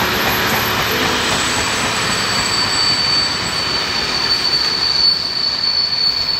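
Passenger coaches rolling past on the rails, a steady rushing wheel-and-track noise with a thin, high, steady wheel squeal that sets in about two seconds in and holds.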